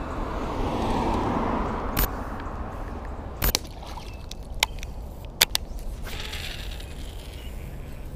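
Steady wind rumble with a swell of rushing noise over the first few seconds, then scattered sharp clicks and knocks from a baitcasting rod and reel being handled.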